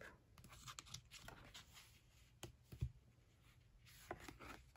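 Near silence with faint handling of a paper sticker book: a few light taps and a soft thump about two and a half to three seconds in, then a brief paper rustle near the end.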